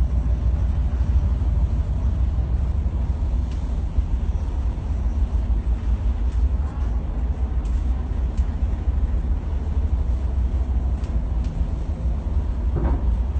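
Steady low engine rumble with a haze of noise over it, and a brief higher-pitched sound near the end.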